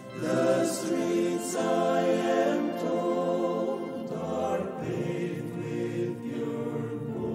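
A men's choir of about ten voices singing in harmony, holding long chords, with two sharp 's' sounds in the first second and a half.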